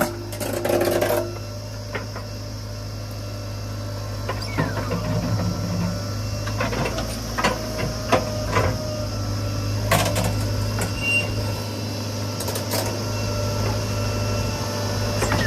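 A heavy diesel engine running at a steady low hum, with scattered short metallic knocks and clanks over it.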